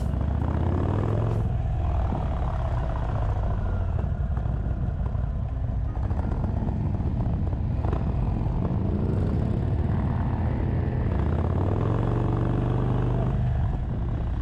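Indian Chief 116 V-twin with a Stage 1 exhaust and Stage 2 tune running under way, its pitch climbing as the bike accelerates a few times and dropping back near the end.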